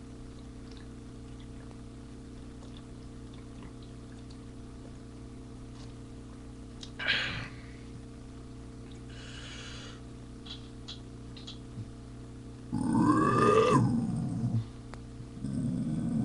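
A man's long, loud burp about thirteen seconds in, lasting under two seconds, then a second, lower burp starting near the end, over a steady electrical hum. A brief sharp sound comes about seven seconds in.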